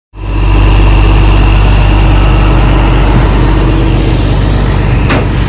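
A large engine running steadily and loudly close up, with a sharp click about five seconds in.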